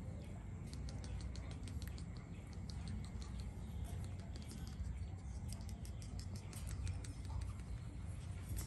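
Puppies' claws tapping and scratching on a wire pen and its plastic floor grid: a rapid, irregular run of light clicks over a low steady rumble.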